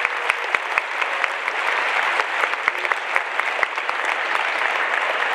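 An auditorium audience of students applauding, with individual sharp claps standing out at first and thinning toward the end.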